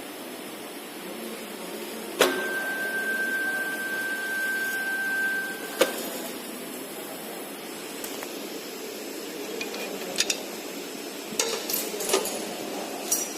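Semi-automatic soldering machine working: a sharp click starts a steady high tone that lasts about three and a half seconds and ends with another click, followed later by several short mechanical clicks over a steady background hiss.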